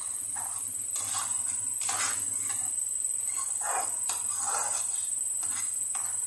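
A spatula scraping and stirring thick masala around a metal kadai, in irregular strokes about once a second, over a steady high-pitched hiss.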